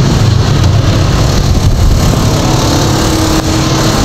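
Steady engine noise of motor-vehicle street traffic, with a faint steady engine tone in the second half.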